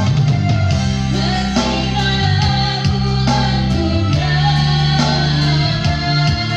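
A song: a sung melody over guitar and other backing instruments with a steady beat.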